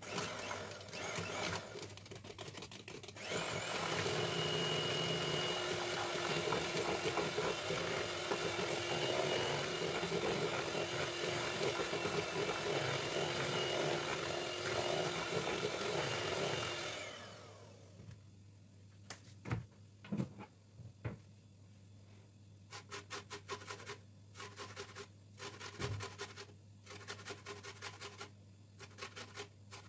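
Electric hand mixer beating cake batter in a plastic bowl. The motor runs steadily, gets louder about three seconds in and winds down to a stop about seventeen seconds in. From about twenty-two seconds in, a lemon is grated on a metal box grater over the batter, making short runs of rapid scraping strokes.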